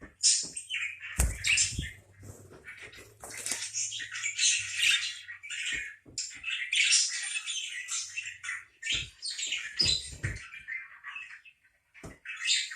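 Pet parakeets chattering and squawking almost without pause, in quick rising and falling calls, with a few dull low thumps in between.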